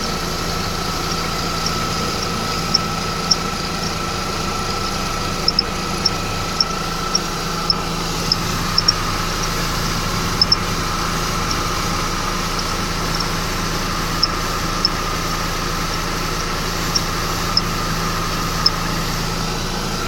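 Mercedes-Benz E350's M272 V6 idling steadily over a steady high tone, with short sharp chirps from the accessory belt area coming at irregular intervals, roughly one a second. The owner suspects the belt tensioner, which moves in sync with the squeak.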